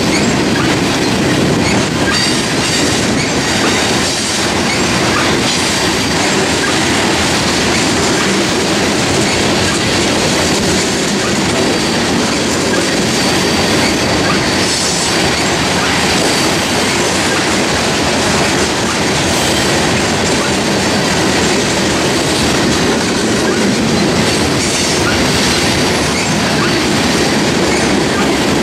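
Two freight trains rolling past side by side: loaded coal hopper cars on the near track and an intermodal train of truck trailers on flatcars beyond. Steady loud noise of steel wheels on rail, with clickety-clack and a faint high wheel squeal now and then.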